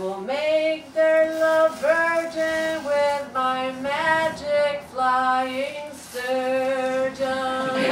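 A woman's voice singing a wordless tune in a string of held notes, one note after another in a slow melodic phrase.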